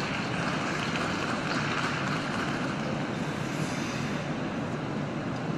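Steady crowd noise in an ice rink arena.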